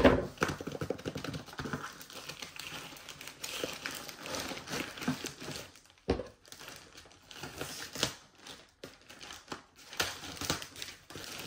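White plastic mailer bag crinkling and rustling as it is handled, reached into and cut open with scissors, with irregular sharp clicks and snips. A loud thump comes right at the start, and a couple more knocks come about six and eight seconds in.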